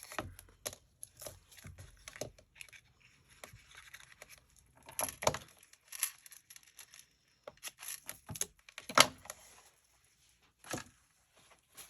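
Paper handling: backing paper being peeled off foam adhesive and crinkled, with scattered sharp clicks and rustles of card and paper. The loudest click comes about nine seconds in.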